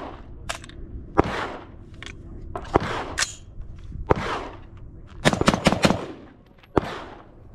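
Camdon Defense CD-15 5.56 AR-15 rifle firing: single shots a second or so apart, then a quick string of several shots about five seconds in and one more near the end, each with an echo.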